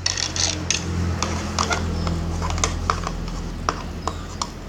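Plastic toy horse being hopped across a hard plastic surface: its hooves give scattered light taps and scrapes. A low steady hum runs underneath and fades about three seconds in.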